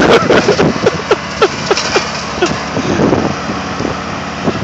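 Kubota riding lawn mower running steadily under load as its blades grind through a bush, with quick irregular cracks and knocks of wood and debris hitting the deck during the first couple of seconds.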